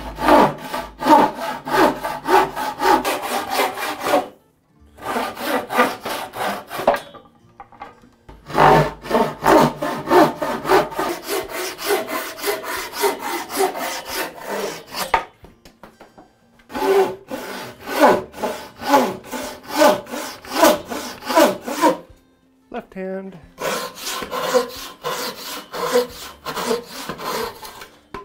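Hand saw cutting through red oak boards in steady back-and-forth strokes, about two to three a second. The strokes come in several runs broken by short pauses.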